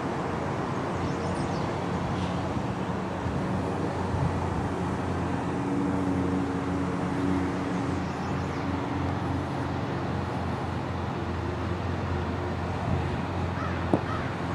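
Steady low drone of distant motor engines with an even background hiss, with a single sharp click near the end.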